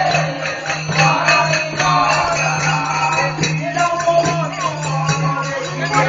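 Live music accompanying a folk dance-drama: a held, slightly bending melody over frequent jingling percussion strikes, with a steady low hum underneath. It is recorded through an old keypad phone's microphone and sounds dull, with no top end.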